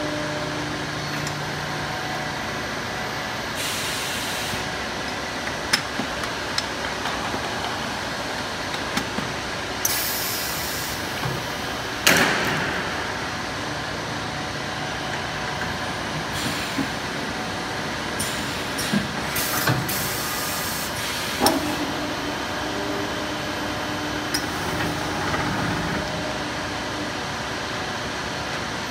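Steady hum of a PE pipe-welding machine and workshop, broken by several short hisses of compressed air and a few sharp metal clunks as pipe is clamped and loaded; the loudest clunk comes near the middle.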